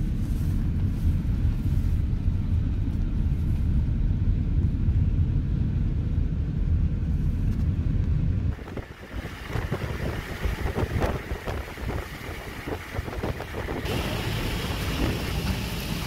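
Strong wind buffeting the microphone, a heavy steady rumble that cuts off about eight and a half seconds in. After that comes a lighter hiss with many small ticks and crackles.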